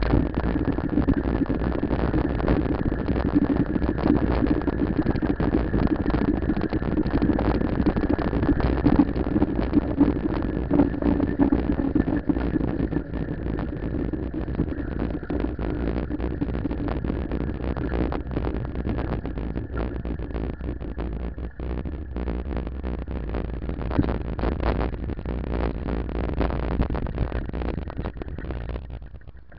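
Riding noise picked up by a bicycle-mounted camera on an asphalt street: a low wind-and-road rumble with constant crackling clicks and a faint steady high whine, easing off near the end.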